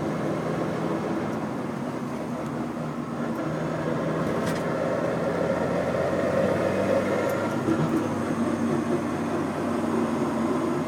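Mitsubishi Eclipse GSX running on the move, a steady engine and drivetrain drone that gets a little louder about halfway through. The owner hears a slight grinding noise from it on acceleration.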